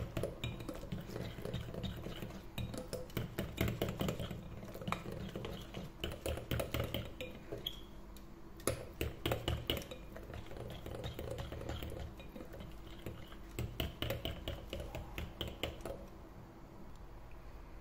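Wire whisk beating cocoa cake batter in a glass bowl: rapid clinking and scraping of the wires against the glass, in runs with short pauses, quieter near the end.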